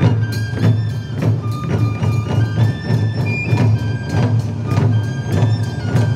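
Japanese taiko drums played in a steady driving rhythm, about three strikes a second, with a high held melody stepping between notes above the beat.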